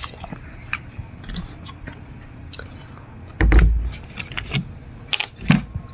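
A person chewing food close to the microphone, with scattered wet mouth clicks and crackles and a heavy low thump a little past halfway.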